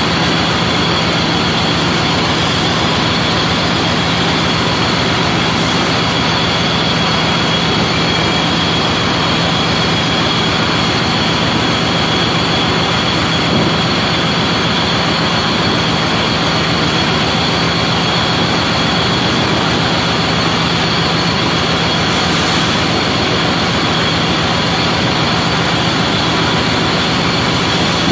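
Metal lathe running steadily while turning a metal shaft: a constant mechanical drone with a low hum and a high whine.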